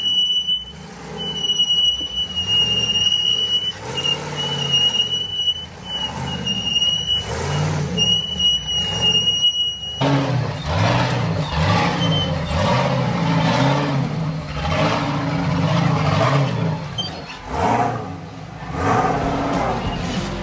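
Unlimited 4400-class rock-racing car's engine revving up and down in bursts as it crawls over boulders. During the first half, a high-pitched steady beep sounds on and off over the engine.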